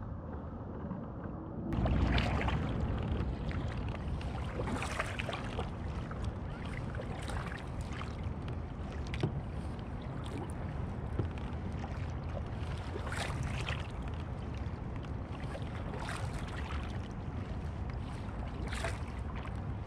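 Kayak paddle blades dipping and splashing in calm lake water, a stroke every two to three seconds, starting about two seconds in, over a steady rumble of wind on the microphone.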